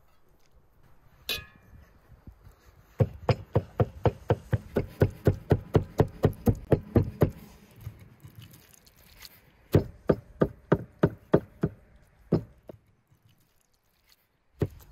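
A heavy knife chopping raw lamb liver on a wooden log block, a fast even run of strikes at about five a second. It pauses, then comes a shorter run and a couple of single chops. A single ringing metallic clink comes about a second in.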